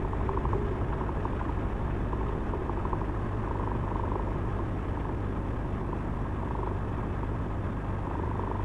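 Heavy truck's diesel engine idling steadily, a low even hum heard from inside the cab.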